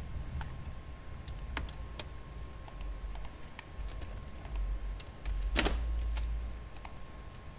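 Scattered single clicks of a computer keyboard and mouse, a dozen or so spread unevenly. The strongest comes about five and a half seconds in, over a low background rumble.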